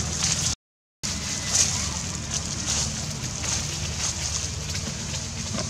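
Outdoor forest ambience: a steady low hum under a high hiss that swells and fades, cut to dead silence for about half a second near the start.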